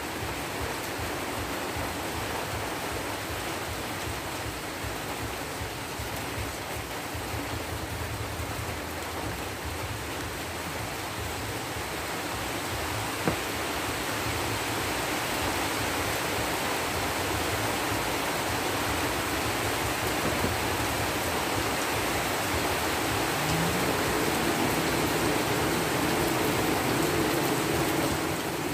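Steady rushing hiss of a blacksmith's charcoal forge with its air blower running, getting a little louder in the second half. A single sharp click comes about halfway through.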